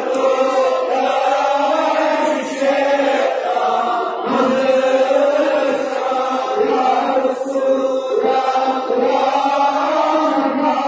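Large group of men chanting a devotional recitation together in unison, in long, sustained melodic phrases with brief breaths between them.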